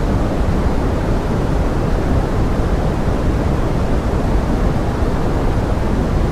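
Steady pink noise: an even, unbroken rushing hiss weighted toward the low end, with no separate drops or other sounds standing out.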